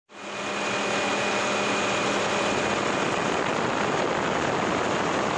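Helicopter in flight, heard from the aircraft: a steady rushing engine and rotor noise that fades in at the start, with a faint steady whine in the first half.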